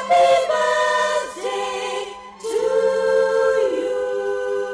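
Choral singing: several voices holding long notes in harmony, with a long sustained chord over the second half.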